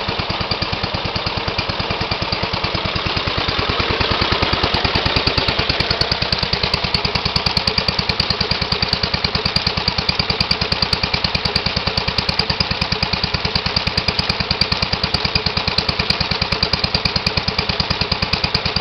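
1928 Briggs & Stratton Model Q single-cylinder engine, fitted with a Model R carburetor, running steadily with a quick, even firing beat and no misses. It is a little louder for a couple of seconds about four seconds in.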